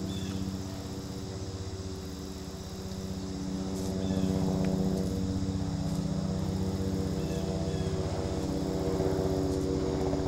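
Steady drone of a distant engine, holding one pitch and growing louder about four seconds in.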